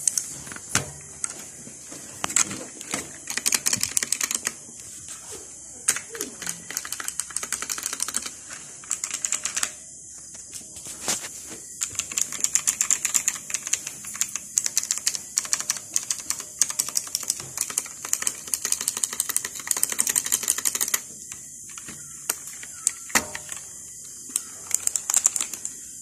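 Fast typing on a Leaven K620 60% mechanical keyboard: rapid runs of key clacks in bursts, with short pauses about ten seconds in and again just after twenty seconds.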